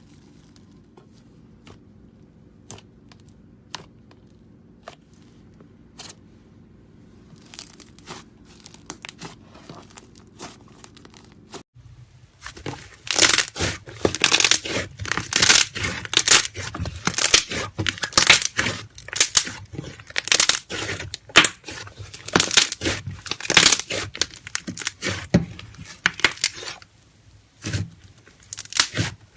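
Slime being squished and stretched by hand. At first there are only scattered light clicks, then about twelve seconds in it turns to a dense run of loud crackling and popping.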